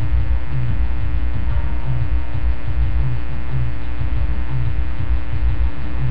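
Loud electrical mains hum with a buzz of many steady overtones and an uneven low throbbing underneath.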